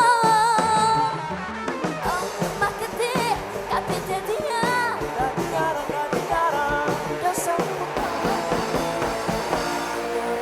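A band performing a Javanese song, with singing over the instruments. A long wavering sung note comes in the first second.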